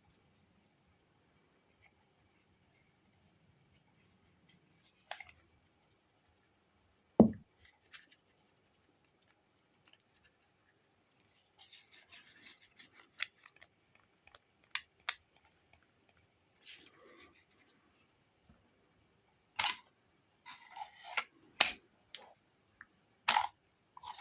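Hands handling a QSP Canary folding knife: scattered sharp clicks and snaps of the blade and lock, with bouts of rustling. One loud thump about seven seconds in.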